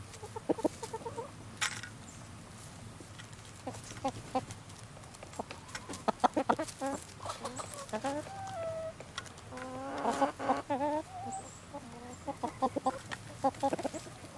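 A flock of hens clucking as they feed, short calls coming in bursts.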